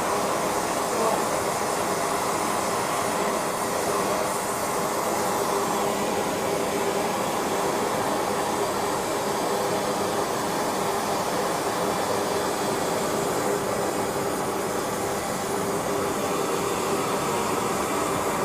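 Gas burner used for melting silver, running steadily: an even, continuous rush of noise with a faint steady hum in the middle pitches.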